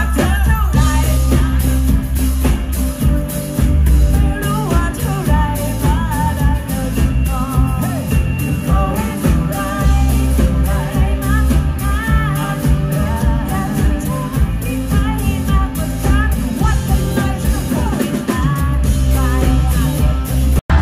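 Live pop-rock band playing, with a woman singing over bass, keyboard and a steady drum beat.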